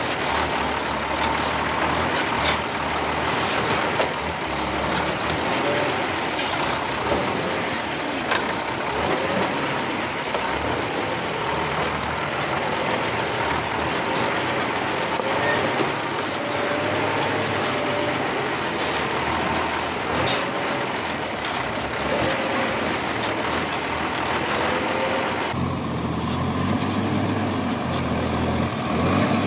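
Running noise from under a REO 6x6 army truck as it drives slowly over a rough, rocky track: a dense, steady drone of engine, drivetrain and tyres on stone, with occasional knocks and faint short squeaks. Near the end it changes abruptly to a deeper, lower engine rumble.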